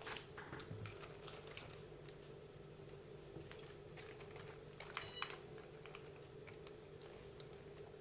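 Light scattered clicks and taps of small RC car parts being handled, with a cluster of clicks about five seconds in, over a faint steady hum.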